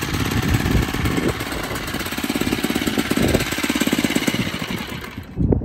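PHATMOTO Rover's 79cc four-stroke single-cylinder engine idling with a rapid, even beat. The engine sound cuts off about five seconds in, followed by a low thump.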